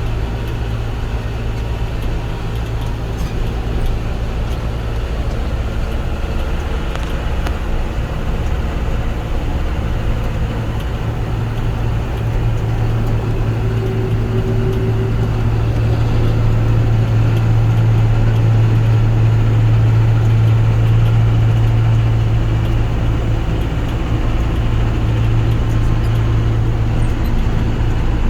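Combine harvester running steadily while harvesting barley: a continuous deep engine hum over a mechanical rumble, growing somewhat louder about halfway through.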